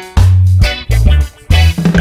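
Background music: an upbeat funk-style track with electric guitar, bass and drums, its bass notes falling in a steady beat.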